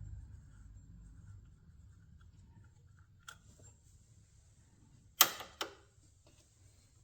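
Two sharp knocks about half a second apart a little past the middle, with a faint click a couple of seconds before them: hand tools and mounting hardware being handled while fitting a power steering pump's bolts.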